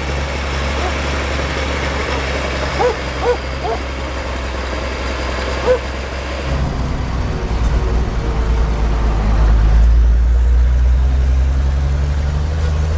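Ursus 1614 Turbo tractor's six-cylinder turbo diesel running as it pulls a slurry tanker, growing louder from about halfway through as the tractor comes close and works harder. A few short chirping sounds in the first half.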